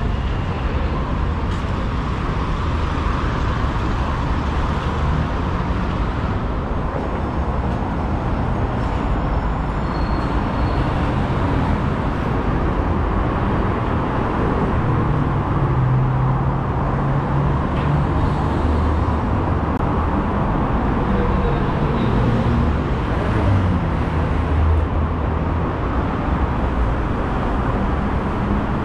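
Steady road traffic on a wide city avenue: cars and buses passing in a continuous hum. A heavier vehicle's low engine note stands out about halfway through and again later.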